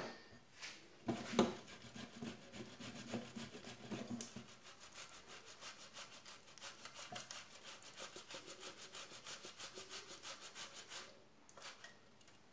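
Cooked potato being grated by hand on a metal box grater: a quick, even run of rasping strokes that stops about a second before the end.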